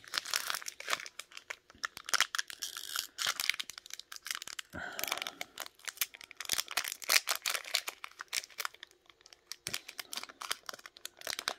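Foil wrapper of a sealed vintage Pokémon Fossil booster pack crinkling and tearing as it is handled and pulled open: a long, irregular run of sharp crackles.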